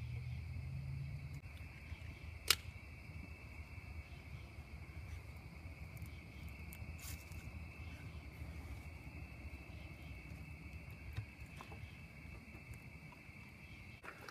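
Crickets chirring steadily in a high, even drone, over a low rumble, with one sharp click about two and a half seconds in and a few fainter ones later.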